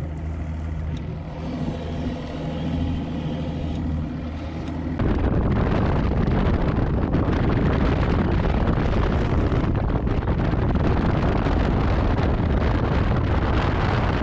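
A bass boat's outboard motor running steadily at low speed. About five seconds in, it gives way to a loud, steady rush of engine, wind and water as the boat runs fast across the lake.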